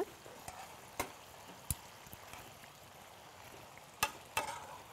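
Thin veal slices frying in butter and olive oil, a faint steady sizzle, with four sharp clicks of metal tongs on the pan: one about a second in, one a little later, and two close together near the end.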